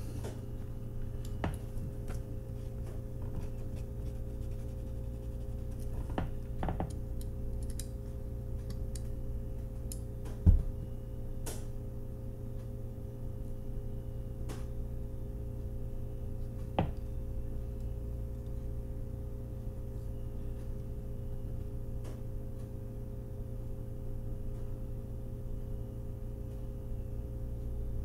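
Quiet room with a steady low hum, broken by a few faint clicks and taps of small objects being handled. There is one sharper knock about a third of the way through and a lighter one a little past halfway.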